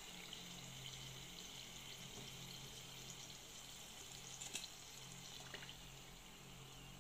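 Shrimp wontons deep-frying in a small saucepan of oil: a faint, steady sizzle with fine crackles. A sharp click sounds about four and a half seconds in.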